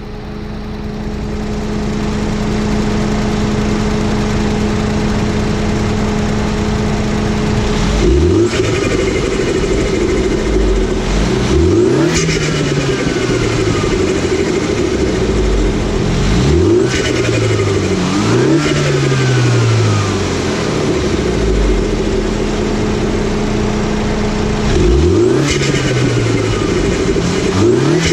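2016 Mini Cooper JCW's turbocharged four-cylinder engine, fitted with a CTS Turbo cold air intake, idling steadily, then revved in several quick throttle blips from about 8 seconds in, each rising sharply and falling back to idle.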